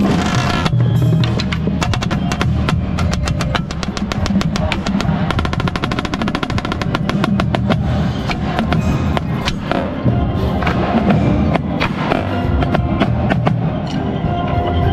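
Marching snare drum heard close up: fast, dense stick strokes and rolls, with the rest of the indoor drumline playing underneath. The strokes come in rapid runs, thickest in the middle of the passage.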